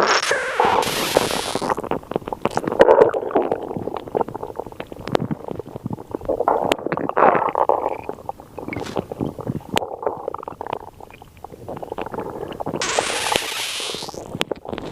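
Stomach growling and gurgling, an irregular run of crackly rumbles and squelches, with two short hissing rushes, about a second in and near the end.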